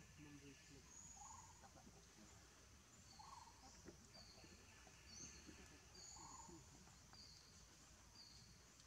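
Faint forest ambience with a bird repeating a short high note about once a second, and a few short, lower calls now and then.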